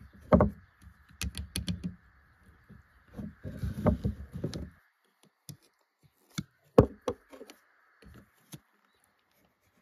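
Metal clicks and knocks as pliers work the pivot nut of a pair of hand hedge shears, with the pliers clattering on a wooden tabletop; the knocks come in short clusters and then single sharp ones.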